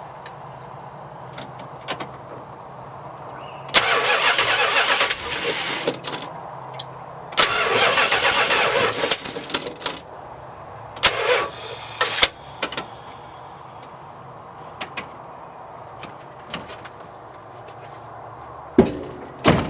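Starter cranking a 1971 Plymouth Fury's 383 V8 in three bursts, the last one shorter, without the engine catching. The battery is too weak, running out of charge. Two sharp knocks near the end.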